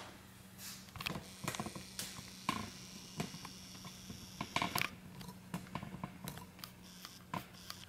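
Faint handling noise: scattered small clicks and light taps, uneven in strength and spacing, over a faint steady hum.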